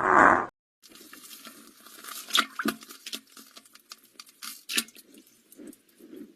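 A loud pitched sound cuts off about half a second in. Then a fart sound effect begins: a sputtering, crackling run of small pops, with a few louder splats about two and a half and five seconds in.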